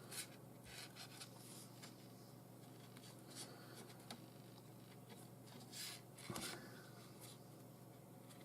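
Faint rustling and rubbing of nylon paracord being pulled tight around a hex nut by hand, a few short soft scrapes, with one soft bump about six seconds in.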